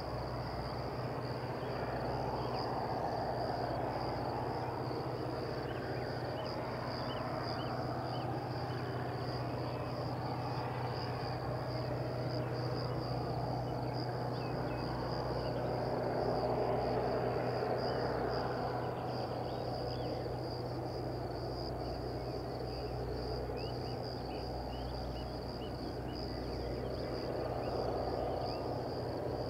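Crickets chirping in a continuous high-pitched trill, over a steady low hum and a dull background rumble that swells and fades a few times.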